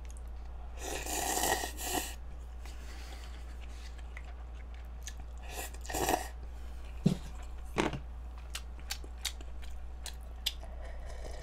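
A person slurping cup ramen noodles, once about a second in and again around six seconds, with chewing and small clicks in between. Near the end she sips broth from the cup. A steady low hum runs underneath.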